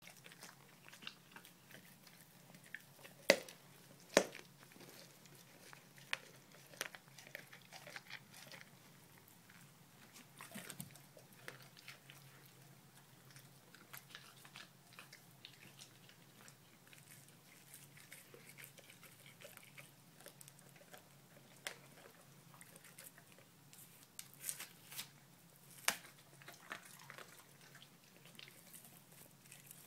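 Dogo Argentino chewing and biting into a whole raw fish: irregular sharp crunches and clicks of teeth, the loudest two close together about three and four seconds in, and a cluster near the end.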